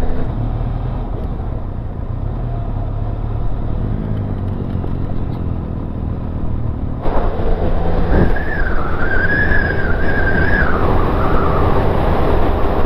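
Benelli TRK 502 motorcycle engine running steadily at road speed, with wind rush on the microphone. About seven seconds in the sound turns abruptly brighter, then a single knock and a wavering high tone for about two seconds.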